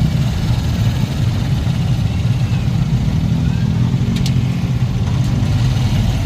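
Motorcycle engine of a Philippine tricycle running steadily under way, heard from on board, with road noise.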